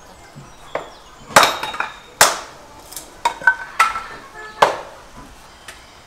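Hatchet chopping wood on a wooden stump: a series of sharp, uneven chops, the loudest about a second and a half and two seconds in, some with a short ringing clink.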